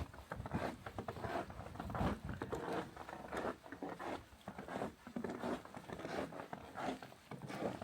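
Footsteps crunching in snow at a steady walking pace.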